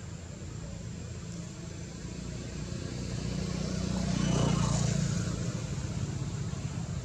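A motor vehicle passing by: a low engine and road rumble that swells to a peak about four and a half seconds in, then fades away.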